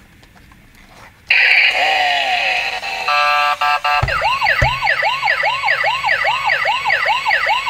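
Toy police car's battery sound module playing its effects: a harsh noisy burst, a short buzzing tone, then a fast electronic siren wail rising and falling about three times a second. Two knocks come about four seconds in as the plastic car is set down on the table.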